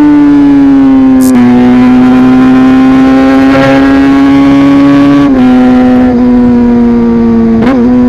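Motorcycle engine heard from on board, held at a steady high pitch while riding. Its pitch steps down slightly twice, and there is a quick rev blip near the end.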